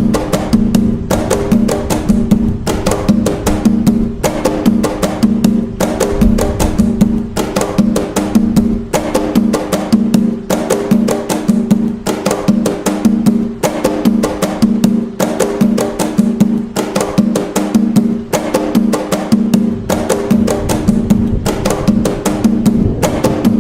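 Atabaque hand drums playing the nagô (toque de nagô) rhythm of Umbanda: a steady, repeating pattern of sharp, quick strokes over a recurring low drum tone.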